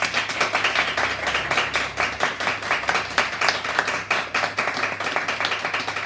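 Applause from a small seated audience, many hands clapping steadily.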